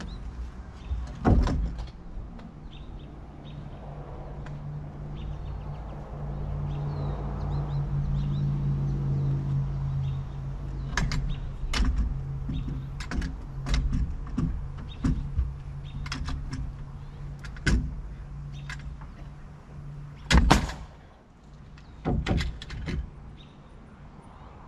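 Pneumatic framing nailer firing nails into wall studs and plates: one sharp shot about a second in, then a run of a dozen or so shots from about eleven seconds in. A steady low machine hum runs underneath and cuts off about twenty seconds in.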